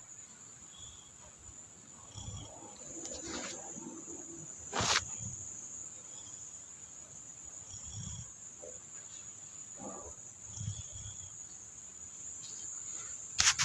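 A sleeping person snoring, low soft snores repeating about every two to three seconds, with one sharp click about five seconds in.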